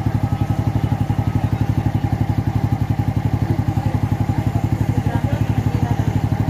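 Yamaha Mio Soulty scooter's single-cylinder four-stroke engine idling with a steady, rapid, even pulse. The carburettor's air-fuel mixture screw is being turned out little by little to find the highest idle speed.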